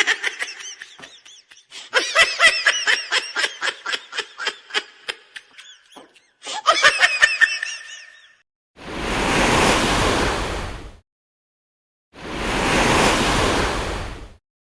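A 'troll laugh' meme sound effect: a long, rapid, rhythmic cackle of pulsing, wavering laughs lasting about eight seconds. It is followed by two swelling rushes of noise, each about two seconds long.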